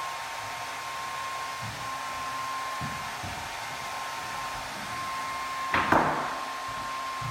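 A steady blower rushing with a constant thin whine through it. About six seconds in, a brief loud sound drops quickly in pitch.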